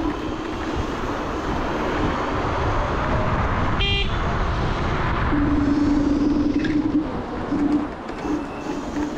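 Rushing wind and road noise from a Dualtron Thunder 2 electric scooter riding at speed. A short horn toot comes about four seconds in, and from about halfway a steady motor whine holds one pitch, breaking up near the end.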